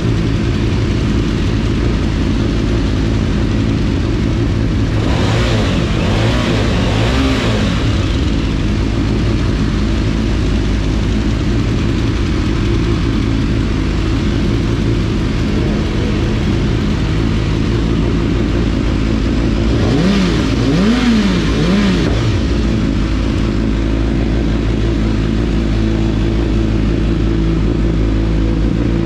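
Several motorcycle engines idling together as they warm up. One is revved briefly about a fifth of the way in, and there are three quick throttle blips about two-thirds of the way through.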